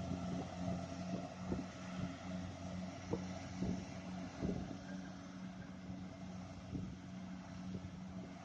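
A farm machine's engine running at a steady drone, with irregular low knocks and thumps over it.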